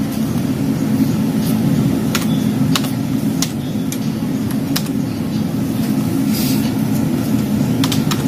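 Steady low machine hum, with a few scattered sharp clicks from computer keys and a mouse as a command is typed into the PC.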